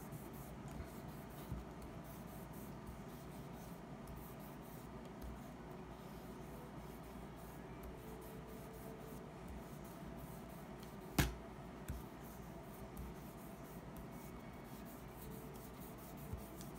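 Applicator tip of a lemon-oil bottle rubbing faintly along a Jackson Soloist electric guitar's bare fretboard, with a single sharp click about eleven seconds in.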